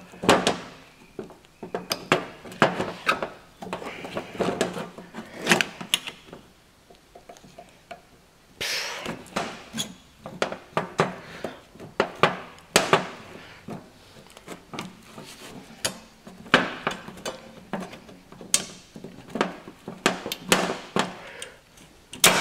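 Hand tools clinking, scraping and knocking against steel drum brake shoes and their springs, in irregular bursts with a short lull partway through, as a tightly tensioned brake spring is forced off the shoe assembly.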